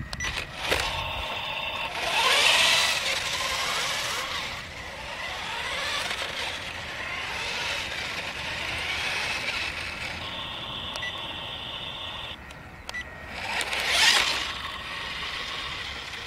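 Electric drive motor and gears of an HC-801 RC stunt motorcycle whining, rising and falling in pitch as the bike speeds up, slows and holds wheelies. There are two louder surges, about two and a half seconds in and near the end, and a steady whine for a couple of seconds before the second surge.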